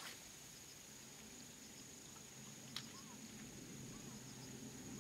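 Faint open-air quiet with a steady high-pitched insect-like whine. A brief swish right at the start comes as a spinning rod is cast, and one sharp click sounds a little past halfway.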